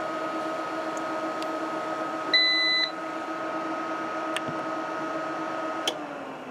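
Dell J727N UPS running on bench power with a steady whine. A short electronic beep comes about two and a half seconds in, with a few sharp clicks from its front-panel buttons; about six seconds in a click comes and the whine falls in pitch and fades as the unit shuts down.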